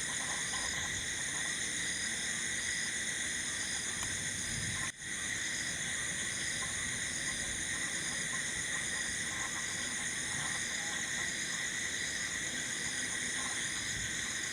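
Night insect chorus of crickets and other insects: a dense, steady high-pitched trilling in several layers, one of them pulsing evenly. It cuts out for an instant about five seconds in.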